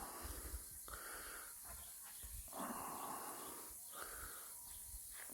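A person breathing hard in and out, a few heavy breaths about a second apart, out of breath from exertion.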